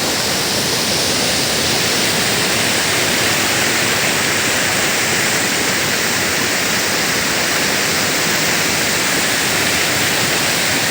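Loud, steady rush of a rain-swollen mountain stream in spate.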